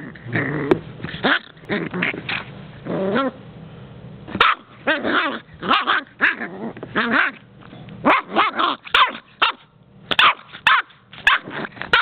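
Puggle puppy barking in short, repeated bursts with growling between, in play.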